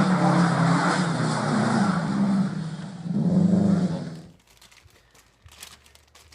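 Car engine running loudly, its pitch dipping and then rising again in a rev about three seconds in, before the sound cuts off suddenly about four seconds in; faint clicks follow.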